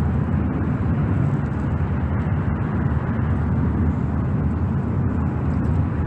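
Steady low rumbling background noise, even throughout, with no distinct events.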